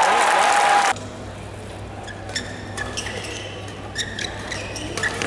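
Loud crowd noise that cuts off abruptly about a second in. Then the quieter sound of an indoor badminton hall, with shoes squeaking on the court floor in short, sharp chirps several times.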